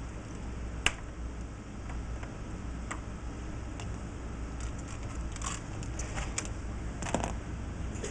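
Scattered small clicks and taps of parts and tools being handled during hand assembly, over a steady low hum. The sharpest click comes about a second in, with a few more in the second half.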